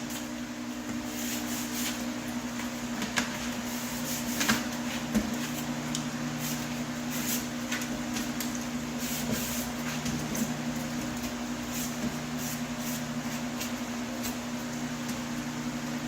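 Sanding sponge scrubbing and rubbing a metal HVAC register, with a few short knocks against the metal, over a steady low hum.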